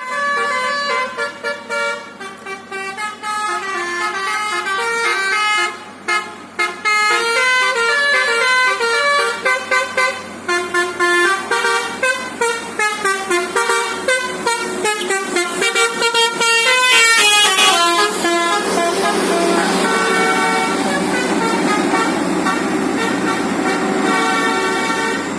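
Tour bus's multi-tone telolet horn playing 'full telolet': quick runs of stepped horn notes, several pitches at once, sounded in short blasts, then held more steadily with a hiss in the last third.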